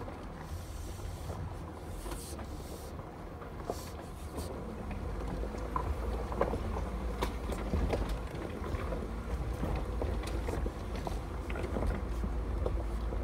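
Off-road vehicle crawling down a rough, rocky trail, heard from inside the cab: a steady low engine and drivetrain rumble, with knocks and rattles as it rolls over rocks that grow busier from about five seconds in.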